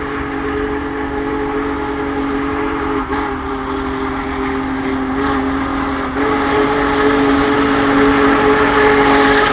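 Union Pacific Big Boy 4014's chime steam whistle blowing a long held chord, broken twice briefly about three and six seconds in, over the noise of the moving train, which grows louder toward the end as it approaches.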